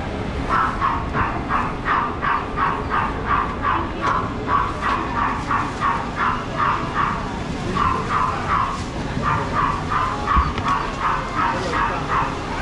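A dog yapping over and over, about three to four short yaps a second, with two brief pauses.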